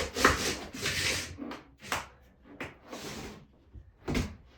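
Irregular scraping and rubbing strokes from hand work on a floor being prepared for tile, several in a row of different lengths, with a short sharp knock or scrape about four seconds in.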